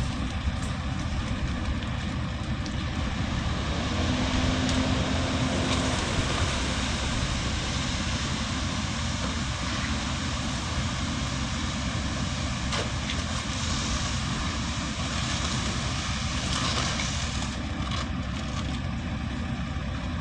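Concrete truck's engine running steadily, with a brief steady hum for about two seconds starting around four seconds in.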